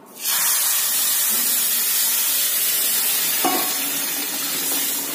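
Water poured into a hot kadhai of ghee-roasted semolina and sugar, hissing and sizzling loudly as it flashes to steam. The hiss starts suddenly and eases off slowly.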